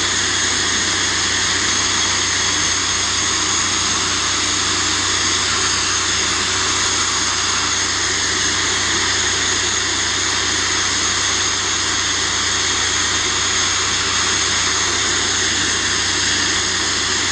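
Glass bead blaster running continuously, a loud steady hiss of compressed air and abrasive blasting a Ford Transit wing panel, with a low steady hum underneath.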